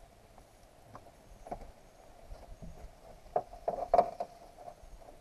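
Light knocks and taps over a faint steady hum, bunching into a quick cluster of louder knocks about three and a half to four seconds in.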